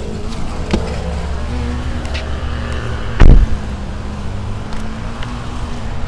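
Body sounds from a 2014 Nissan Altima as the hood release is worked: a light click about a second in, then one heavy thump about three seconds in, over a steady low rumble.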